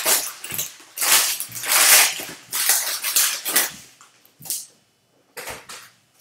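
Foil wrapper of a Bowman Draft Super Jumbo trading-card pack crinkling and tearing as it is ripped open by hand, in a run of rustling bursts over about four seconds. Two brief rustles follow near the end.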